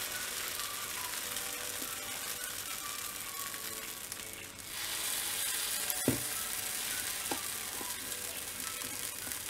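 Idli batter sizzling in the hot oiled cells of a kuzhi paniyaram pan as it is spooned in. The sizzle dies down briefly near the middle and flares up again as more batter goes in, with one sharp knock a little after that.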